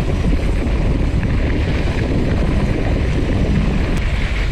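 Wind rushing over the microphone of a handlebar-mounted camera on a moving mountain bike, mixed with the tyres rolling over a dirt and gravel track; a steady, rumbling noise with no let-up.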